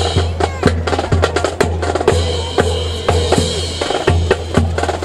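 Rifle drill by a marching squad: sharp clacks of rifles being slapped and handled, and boots stamping together in an uneven rhythm, over a steady low rumble.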